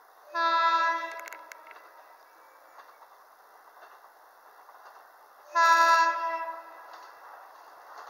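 An approaching JR West Ako Line train sounding its horn twice, each blast about a second long and about five seconds apart, as a warning for an ungated fourth-class level crossing. Near the end the train's running noise begins to grow.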